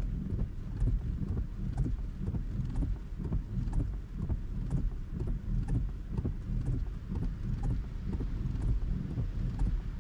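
Rain falling on a Tesla's roof and windshield, heard inside the car's cabin: irregular ticks of drops over a steady low rumble.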